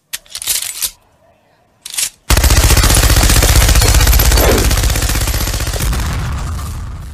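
Machine-gun fire sound effect: a long, rapid burst of shots starting about two seconds in and fading out near the end, after two short noisy bursts.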